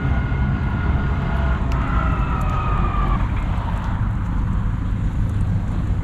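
Road traffic going by: a passing vehicle's whine slides slowly down in pitch over the first three seconds and fades, over a steady low rumble.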